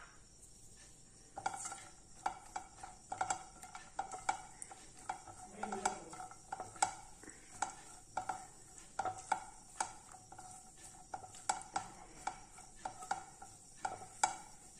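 Silicone spatula stirring cashew nuts in ghee in a nonstick frying pan, frying them: light knocks and scrapes against the pan, two or three a second, starting about a second and a half in.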